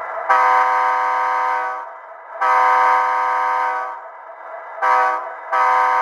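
Sound-equipped HO-scale EMD SD60M model locomotive (Athearn Genesis 2.0) sounding its diesel air horn, a loud steady chord from the model's onboard speaker. It blows the grade-crossing pattern: two long blasts, a short one, then a final long blast that starts near the end.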